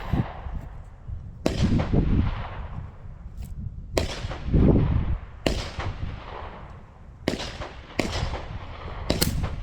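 A string of gunshots on a shooting range, about seven sharp cracks at uneven spacing, some barely a second apart, each with a trailing echo. Wind rumbles on the microphone underneath, swelling twice.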